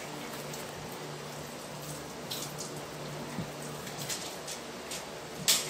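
Quiet room noise with a steady low hum and a few faint clicks and rustles, ending in a sharp knock near the end.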